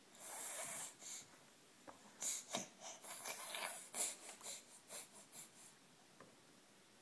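A toddler making excited, breathy noises while getting worked up over a snack: one long huff, then a quick run of short huffs and snorting breaths.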